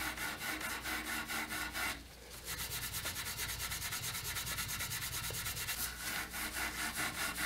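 Rapid back-and-forth scrubbing of a Mission-style oak rocking chair's arm with a cleaning pad: even rubbing strokes, about seven a second, with a brief pause about two seconds in. The pad is lifting old grease and grime off the finish.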